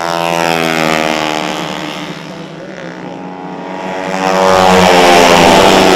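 Race-tuned four-stroke Vespa scooter engines passing at high revs. The first engine note falls in pitch as it goes by, and a second, louder pass comes through about four seconds in.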